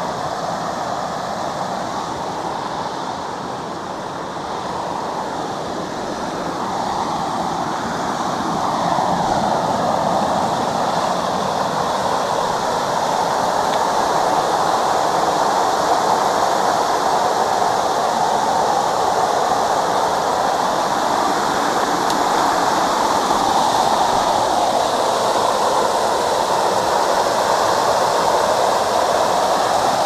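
Waterfall pouring over a rock ledge and rushing across a flat sandstone bed in a steady rush of water, swollen and running high. The rush grows louder about eight seconds in, then holds.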